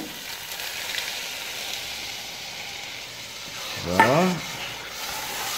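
Steady sizzling of minced beef, onions and chilis frying in a pot.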